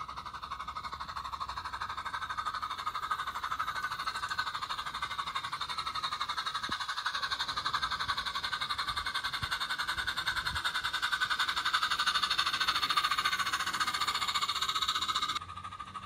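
Small live-steam garden-railway locomotive chuffing with rapid, even exhaust beats, growing louder as it approaches and cutting off abruptly near the end.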